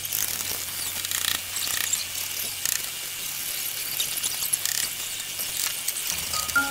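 Building-site work noise: irregular clicks and knocks from workers handling formwork and reinforcement, over a steady hiss. Music comes in near the end.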